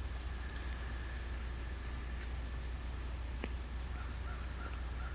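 Outdoor ambience with a steady low rumble and faint bird calls: a few short, high chirps spread through, and a quick run of calls near the end.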